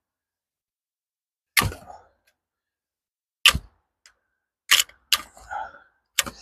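Screwdriver prying at the carved eye of a chainsaw-carved wooden pumpkin: about five sharp wooden knocks and cracks, spaced roughly a second apart, as the wood in the eye is popped loose.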